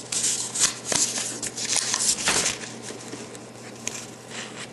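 A sheet of paper rustling and crinkling as it is handled, with a few light clicks in the first couple of seconds.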